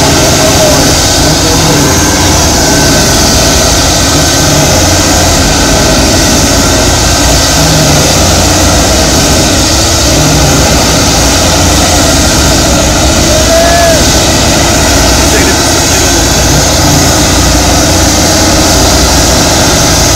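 Heavy off-road truck diesel engines running under sustained full load, pulling against each other on a tow line in deep mud, with black smoke pouring from the exhaust. A loud, steady drone.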